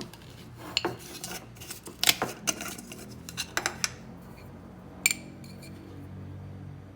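Utensils and dishes clinking: a dozen or so sharp, irregular clicks and knocks with short ringing, over a steady low hum.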